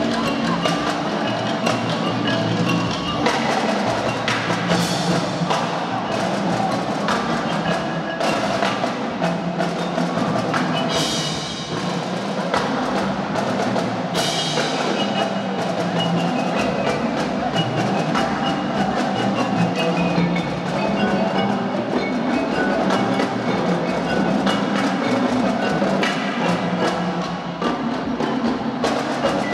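Drum band playing a percussion piece: marching snare, tenor and bass drums in a busy rhythm under a marimba and xylophone melody. Cymbal crashes ring out three times in the first half.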